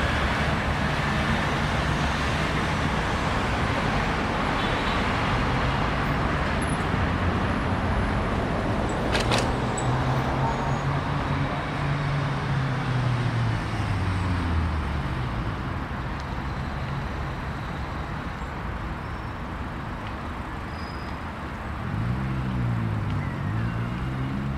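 Steady road traffic noise, with the engine hum of passing vehicles rising and falling in pitch around ten seconds in and again near the end. A single sharp click about nine seconds in.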